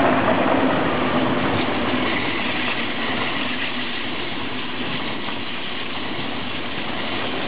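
ICE high-speed electric train passing close by: a steady rushing of wheels on rail. It is loudest at the start and eases slightly as the coaches run past.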